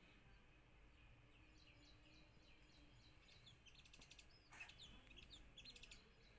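Sunbird chirping: faint, short high chirps and quick trills, coming thicker after about a second and a half, with one louder sweeping note about four and a half seconds in.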